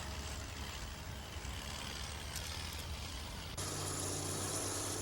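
Heavy vehicle engine running steadily, recorded on a camcorder; about three and a half seconds in it cuts abruptly to another steady engine hum with more hiss.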